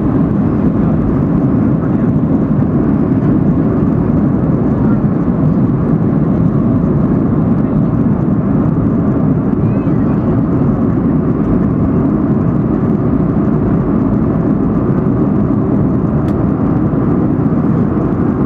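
Boeing 757-300 jet engines at takeoff power, heard inside the cabin: a loud, steady low roar mixed with rushing air as the airliner leaves the runway and climbs.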